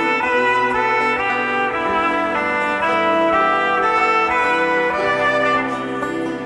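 Live band playing an instrumental passage: held, horn-like chords from keyboard and strings change about once a second over a low bass line.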